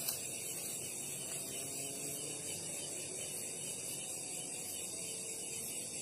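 Steady, high-pitched chorus of night insects chirring, with one short click right at the start.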